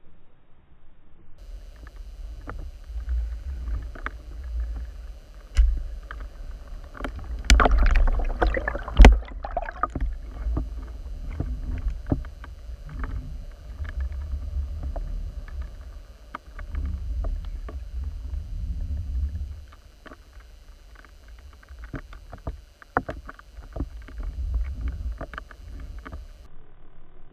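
Muffled underwater sound picked up by an action camera in its waterproof housing: a low rumble of moving water with scattered knocks and clicks, and a louder cluster of knocks about eight to nine seconds in.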